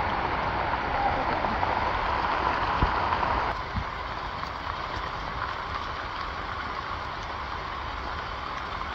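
Heavy rain falling steadily through forest foliage, a dense even hiss with a few sharp ticks of drops striking close by. It drops slightly in level about three and a half seconds in.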